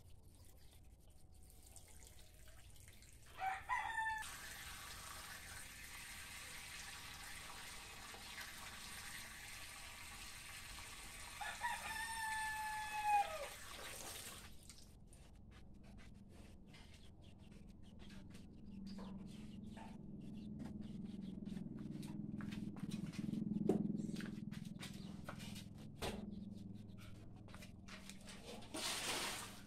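A rooster crowing twice: a short crow and then, about eight seconds later, a longer one, over a steady hiss. Later a low rumble swells and fades away.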